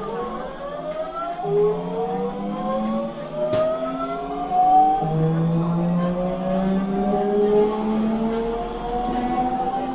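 Osaka Municipal 66 series early-build subway car's GTO-thyristor VVVF inverter whining as the train accelerates: several tones rise steadily in pitch, changing pattern in steps, over the rumble of the train running. A single sharp click comes about three and a half seconds in.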